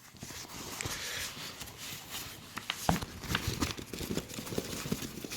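Rustling, crinkling and light knocks of a chainsaw carry bag being handled and folded, in irregular bursts with a few sharper clicks around the middle.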